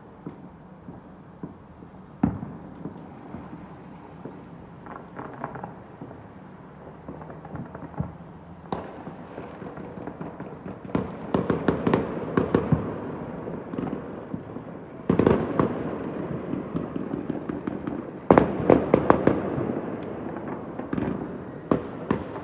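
Fireworks going off all over the city, heard from high up through open windows: a constant rumble of distant bangs with scattered sharp cracks, building about halfway through into dense bursts of crackling reports.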